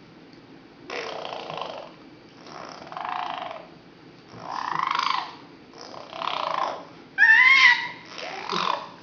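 Repeated breathy, grunting vocal noises from a six-month-old, one every second or so, with a short high squeal about seven seconds in.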